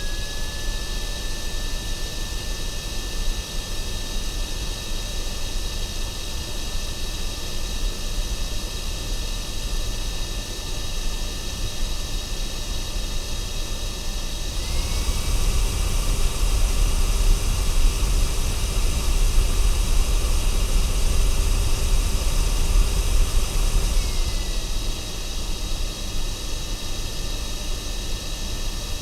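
Vacuum cleaner running: a steady high motor whine over rushing air. About halfway through, the whine steps up in pitch and the sound grows louder, then drops back about ten seconds later.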